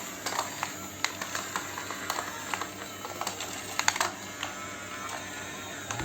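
Small electric motors of a radio-controlled toy excavator whirring steadily, with many light plastic clicks and ticks as it works.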